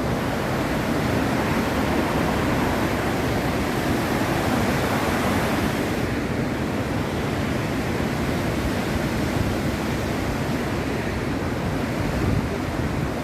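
Bow Falls, the wide waterfall on the Bow River, sending out a loud, steady, unbroken rush of falling water.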